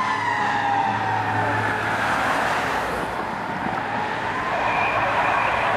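Fire engine siren trailing off as the engine drives away, its wail falling in pitch during the first second. A car then passes by with a swell of tyre and engine noise.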